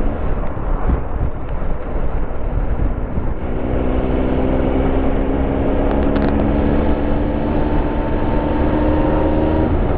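Triumph Tiger Explorer 1200's three-cylinder engine running at steady cruising revs, under a constant rush of wind noise. The engine note comes through clearly from about a third of the way in and holds one pitch.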